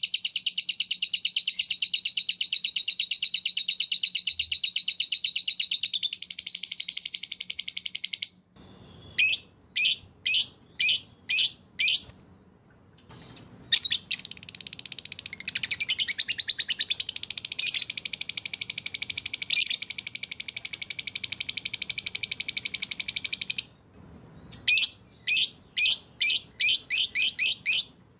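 Canary and lovebird song: long, very fast high trills alternate with runs of separate short chirps, about two a second, each run set off by a brief pause.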